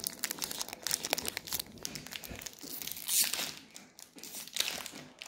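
Foil wrapper of a small trading card pack crinkling and tearing as hands work it open, a dense run of sharp crackles with a louder tearing stretch about three seconds in.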